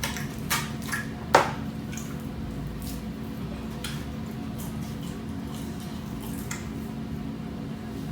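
Close-miked eating of shrimp, chicken and fries: chewing and handling food, with scattered clicks and taps, a sharp one just over a second in, over a steady low hum.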